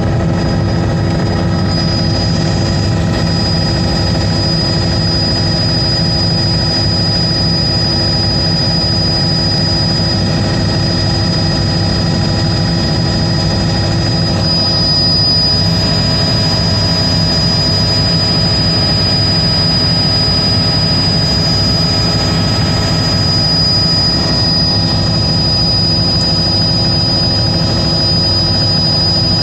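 Aircraft engine drone heard from inside the cabin, steady and unbroken, with a constant thin high whine over it.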